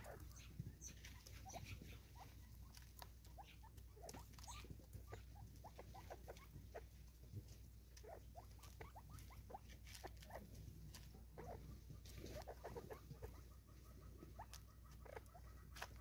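Francolins feeding at a seed feeder: faint, scattered pecking taps with brief soft clucking calls throughout.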